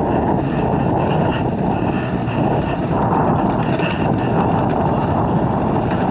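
Dirt bike being ridden along a trail, its engine running steadily under a heavy rush of wind on the microphone.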